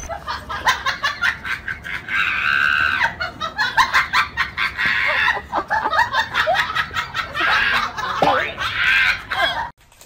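A man screaming and shrieking in high-pitched bursts, three loud stretches, mixed with laughter, cutting off abruptly just before the end.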